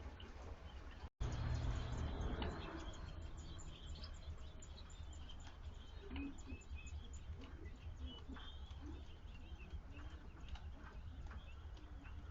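Birds chirping in short, scattered calls over a low steady rumble. The sound drops out for an instant about a second in and comes back louder.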